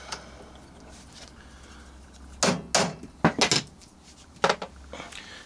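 About five sharp metallic clicks and knocks, starting about halfway through, as the metal parts of a Hornby model-train motor are taken apart and knock against a metal jig.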